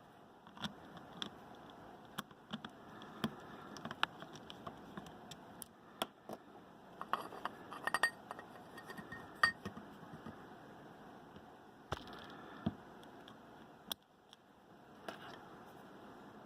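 Small metallic clicks and clinks of a screwdriver and tiny screws against the metal barrel of an Audio-Technica AT2020 microphone being reassembled. The clicks come scattered, with a quick run of ringing clinks in the middle.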